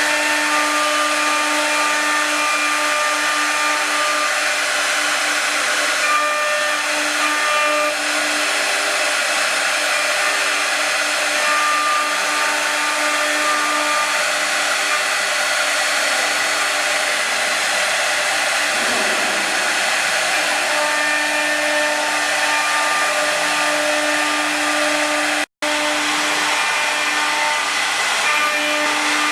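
The air-cooled 3 kW spindles of a four-axis rotary CNC router run at speed during rough engraving: a steady high whine and cutting noise, with several steady tones that switch on and off as the machine moves. The sound drops out for an instant once, near the end.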